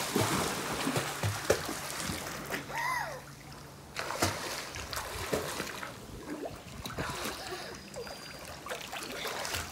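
Pool water splashing and sloshing as children kick and stroke while swimming underwater. A brief child's voice comes in about three seconds in.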